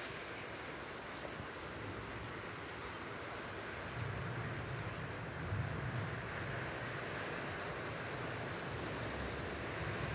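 Outdoor garden ambience with insects chirring in a continuous high steady tone. From about four seconds in, a low rumble swells underneath.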